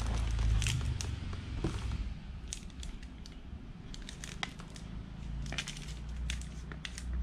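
Plastic shrink-wrap crinkling and crackling, with light clicks, as two wrapped spools of nylon monofilament fishing line are lifted from a box and turned over in the hands. A low steady hum lies underneath.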